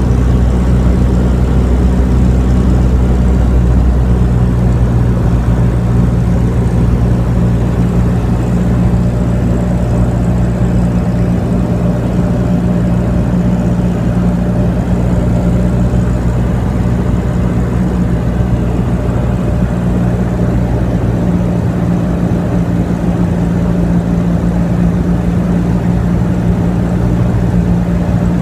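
Steady drone of a small aircraft's piston engine, heard from inside the cabin, with a constant low hum that holds its pitch.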